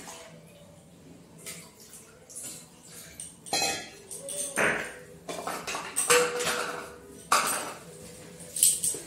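Copper and brass puja vessels and a steel bowl clinking and clattering as they are picked up and set down. There are a handful of sharp metallic knocks, the loudest in the second half, some with a brief ring.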